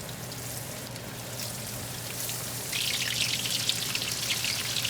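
Breaded chicken cutlet frying in hot oil in a pan: a steady sizzle that turns into louder, denser crackling about three seconds in.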